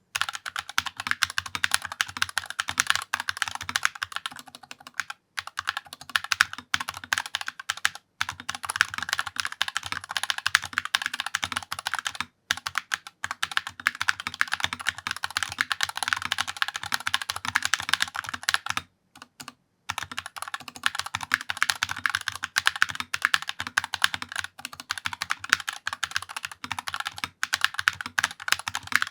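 Fast typing on a Redragon Fid K683 mechanical keyboard with magnetic Hall-effect switches, its rear feet raised: a dense, clacky run of keystrokes. Some keys are louder than others and the large keys rattle. There are short pauses about five, eight and twelve seconds in, and a longer one around nineteen seconds.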